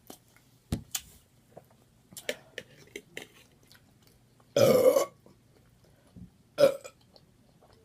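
A woman burping loudly once about halfway through, about half a second long, with a shorter, fainter one near the end. Before it come scattered wet mouth clicks and smacks from eating.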